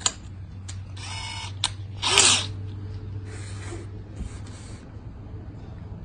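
Power drill with a half-inch bit boring diagonally into a block of wood, running in several short bursts, the loudest about two seconds in.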